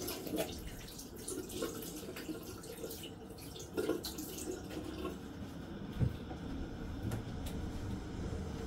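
Water running and splashing in a bathroom sink, with irregular small drips and clicks, and a soft knock about six seconds in.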